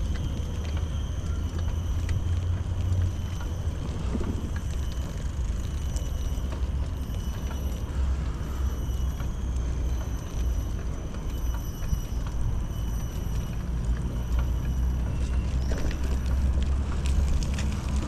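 Outdoor ambience dominated by a steady low rumble, with faint high steady tones above it.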